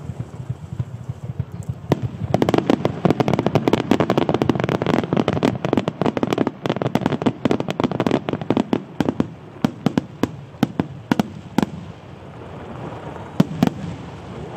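Starmine firework barrage: a dense rapid run of shell bursts and crackles begins about two seconds in, thins out after about ten seconds, and ends with a couple of single sharp bangs.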